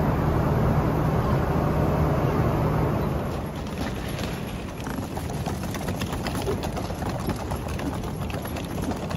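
Airliner cabin noise: a steady low hum with the rush of air. About three seconds in the hum stops and a quieter mix of many small clicks and rattles follows.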